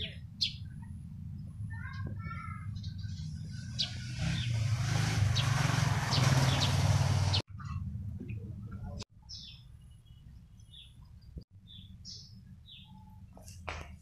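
Eurasian tree sparrows chirping in short, scattered calls. A louder rushing noise swells over about three seconds, a third of the way in, and cuts off abruptly.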